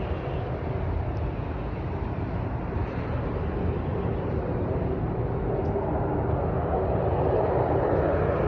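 A loud, steady roar like a jet engine that stays in one place rather than passing over, swelling a little louder in the last couple of seconds.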